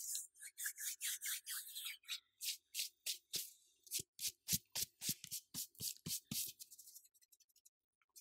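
Close-miked ASMR trigger sounds: a quick run of short hissy swishes, then a string of sharp clicks at about four a second, trailing off near the end.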